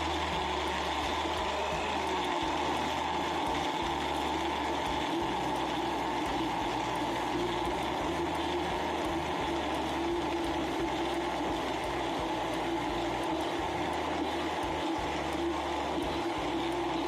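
Electric blender running steadily at a constant speed, a continuous motor whine with no pauses.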